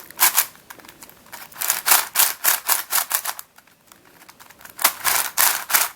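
Layers of a Witeden Mixup plastic puzzle cube being turned quickly by hand: runs of rapid plastic clicks and clacks, with a short pause about halfway through.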